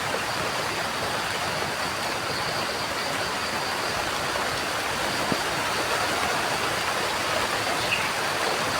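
Steady rain falling, an even hiss with no letup, with a single short high bird chirp near the end.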